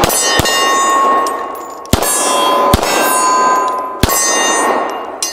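Hudson H9 9mm pistol firing a string of shots a second or so apart. Each shot is followed by the clang and long ringing of a struck steel target.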